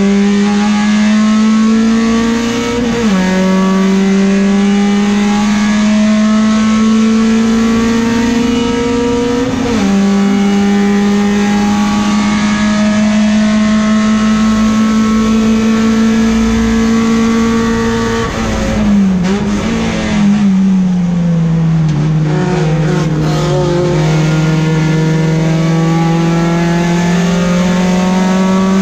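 Peugeot 405 STi race car's four-cylinder engine at full throttle, heard inside the cabin: the revs climb and drop sharply at upshifts about three and ten seconds in, then climb steadily along a straight. About two-thirds through the revs fall away through braking and downshifts, then climb again as it accelerates out.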